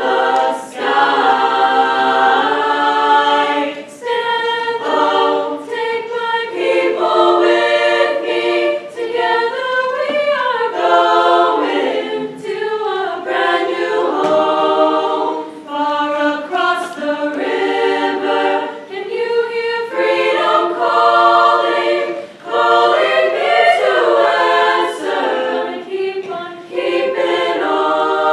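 High-school treble chorus of young female voices singing together in harmony, phrase after phrase with brief breaths between.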